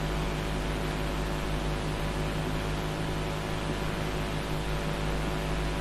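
Steady electrical hum with a stack of even tones over a constant hiss. Nothing changes and no other sound stands out.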